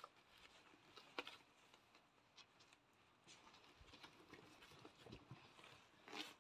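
Faint scattered taps and patters of puppies scrambling and playing on blankets, with a couple of soft thumps.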